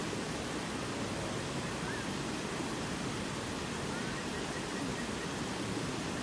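Bonfire burning with a steady, even rushing hiss.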